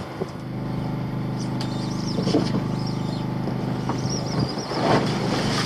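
A boat's engine running steadily with a constant low hum, with a few faint knocks and rustles over it.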